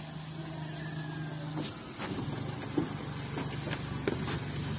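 Small engine of a Suzuki mini pickup running as the truck pulls up and stops, then idling steadily; its note shifts about a second and a half in. A few light clicks sound over the idle in the second half.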